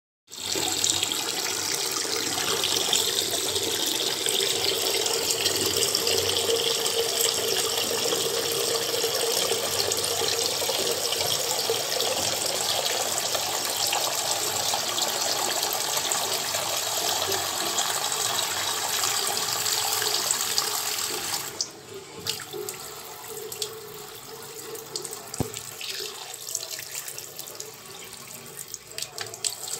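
Steady rushing, hiss-like noise, which drops to a quieter, uneven noise with a few faint clicks about two-thirds of the way in.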